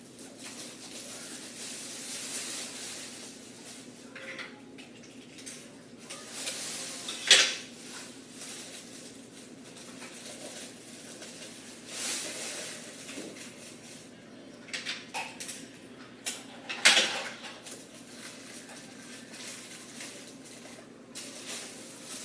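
Handling noise from taping a mylar emergency blanket onto a cardboard box: irregular rustling, crinkling and clicks, with two sharp, louder snaps about seven and seventeen seconds in.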